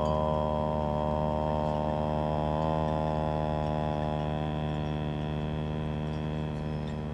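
A group of voices chanting a long om: a steady hummed 'mmm' drone that slowly fades, with a faint high ringing tone held above it.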